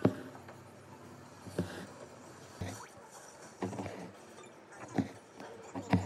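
Embroidery needle punching through cotton-linen fabric stretched taut in a hoop, with cotton floss drawn through after it: a sharp tap about once a second, six in all.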